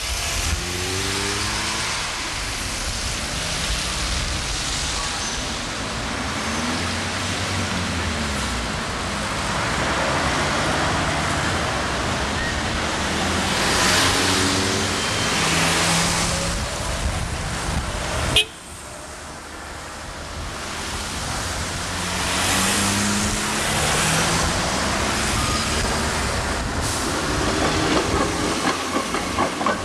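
Street traffic with buses and cars driving past, their engines rising and falling in pitch as they pull away. A sharp click about two-thirds of the way through, where the sound suddenly drops and then builds again.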